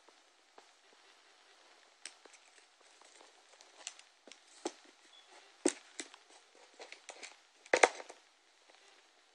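Handling noise from a Philips Shoqbox Bluetooth speaker: scattered light clicks and rubbing as its rubber end cap and ribbed casing are handled and turned over, with a sharper knock a little past halfway and a louder double knock near the end.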